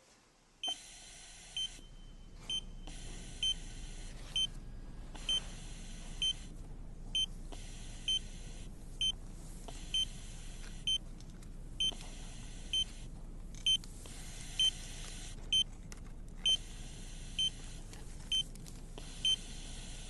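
Bedside patient monitor in an intensive care unit beeping evenly, a little faster than once a second, the pulse tone of a heart monitor, over a steady low background hum.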